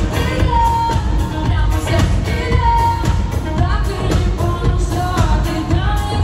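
Pop song performed live over an arena sound system: a woman singing, with several held notes, over a steady, heavy bass beat.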